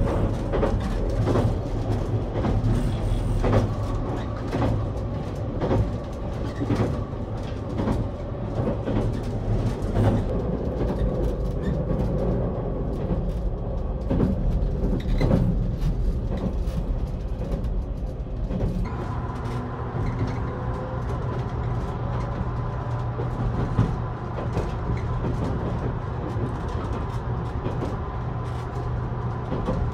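Interior running noise of a JR Kyushu 787 series electric express train in motion: a steady low rumble with scattered knocks through the first half. A thin steady tone sets in about two-thirds of the way through and holds.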